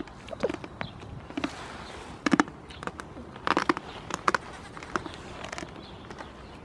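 Goats moving about close by, hooves and bodies making a string of irregular sharp knocks and scuffs, the loudest about two and a quarter and three and a half seconds in.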